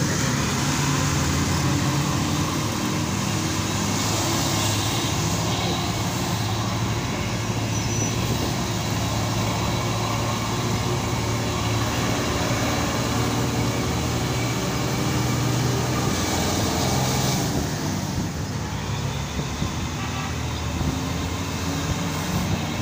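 Bus engine running and road noise, heard from inside the moving bus. The engine note shifts in pitch now and then and drops for a while near the end.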